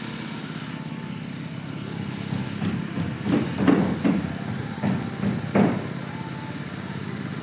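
A steady low engine drone, like a truck or construction machine running, with a handful of irregular knocks about three to six seconds in.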